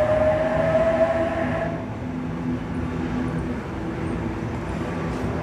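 Sydney Trains H-set (OSCAR) electric multiple unit pulling away, its traction motors whining with a slowly rising pitch that stops after a couple of seconds. A lower hum fades out over a steady rumble.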